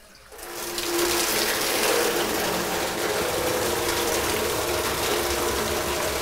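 Liquid running out of the opened tap of a full 200-litre plastic drum into a stainless steel vessel. The flow starts just after the beginning and builds within about a second to a steady pour that holds.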